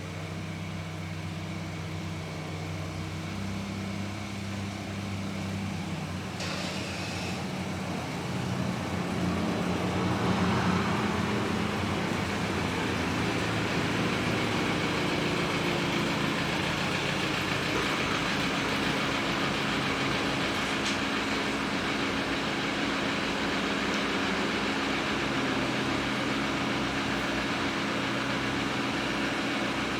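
BMW F10 5-Series sedan's engine running at low speed as the car is driven in. It hums steadily, its pitch shifts a few times, and it grows louder about ten seconds in.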